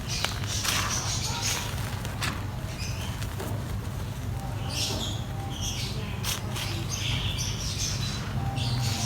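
Dry mud crumbling on a sheet: irregular crackling, crunching and rustling, with a few sharp clicks. A steady low hum runs underneath.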